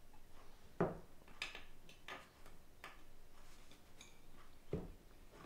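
Light clicks and knocks, several in a row, from hands working upholstery material on a workbench; the loudest knock comes about a second in and another near the end.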